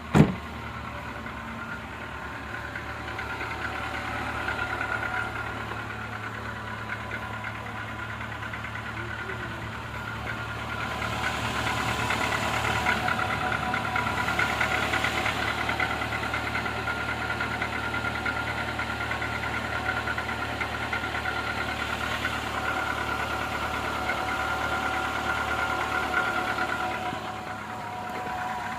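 Renault Logan's 1.6 K7M petrol engine idling cold after a long standstill, with a steady knocking whose cause the owner doesn't know. A brief sharp thump at the very start.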